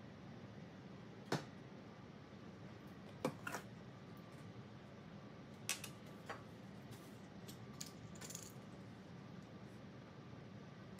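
Scattered light clinks and taps of a metal measuring spoon against a small glass bowl and a granite countertop, along with bottles and a bottle cap being handled. The loudest click comes about a second in, then little clusters of clicks a few seconds apart over a faint steady hiss.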